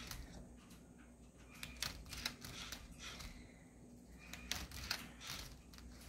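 Lego Boost Rubik's Cube solver robot at work: irregular plastic clicks and clacks as its motor-driven arm and platform turn and flip the cube, over a faint steady hum.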